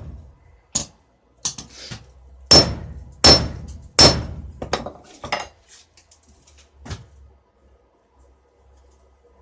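Hand hammer striking steel on an anvil: a run of ringing blows, the three heaviest about two-thirds of a second apart in the middle, with lighter taps before and after, stopping about seven seconds in.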